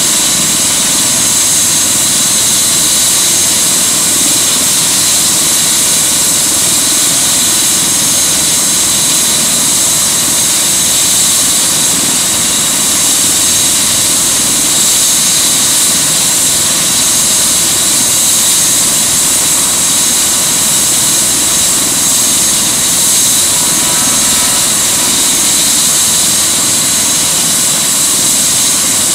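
Airbus H145 (EC145 T2) helicopter running on the ground, rotor turning: a steady high whine from its twin Arriel 2E turbine engines over the rushing of the rotor.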